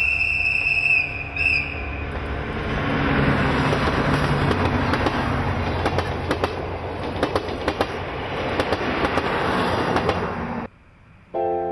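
Diesel locomotive hauling a train of passenger coaches past at close range: a low engine drone under the rolling rumble of the wheels, with rapid irregular clicks of the wheels over the rail joints as the coaches go by. The sound cuts off suddenly near the end.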